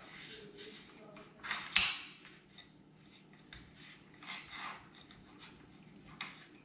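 A cloth rag wiping out the oiled action of a Browning BAR Mark 3 rifle, a series of short rubbing swishes against the metal, with one louder sharp scrape about two seconds in.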